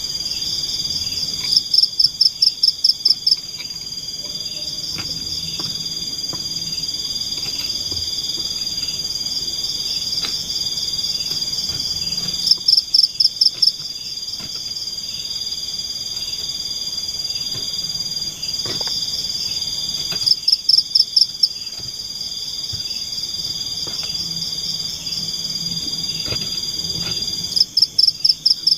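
Forest insects trilling in a steady high-pitched chorus. A louder pulsing call of about five beats a second joins in for a second or two, four times, roughly every seven to eight seconds.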